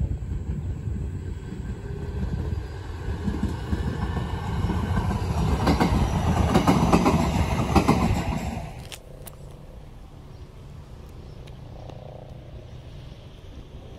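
Electric commuter train passing close along the line, its rumble and wheel clatter building to a peak about six to eight seconds in. The sound then cuts off abruptly, leaving the fainter rumble of another train approaching.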